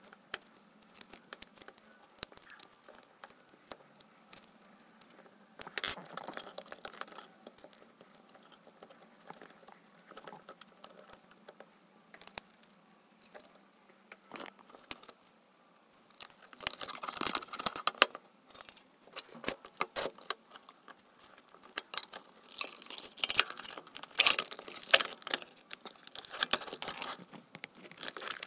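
Gloved hands handling the parts and case of an old Weller soldering station: scattered small clicks, taps and rustles of plastic and metal, busier in the second half.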